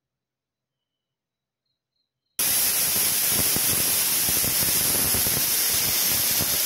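Silence, then about two and a half seconds in, a pressure cooker's weight valve suddenly starts venting steam: its whistle, a loud, steady hiss. This is the sign that the cooker has come up to pressure.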